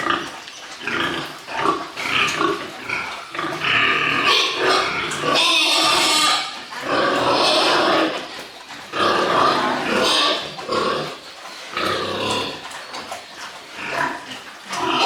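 Pigs squealing loudly in a run of cries, each about one to two seconds long, with short breaks between them.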